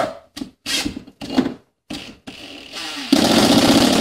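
Cordless drill driving a screw through a metal electrical box into the wall: a few short trigger pulses, then a steady continuous run from about three seconds in.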